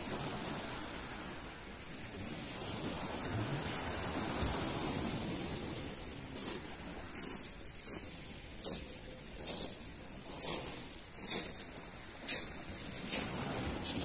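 Sea surf washing onto a pebble beach, then bare feet crunching across the pebbles in steady steps about once a second.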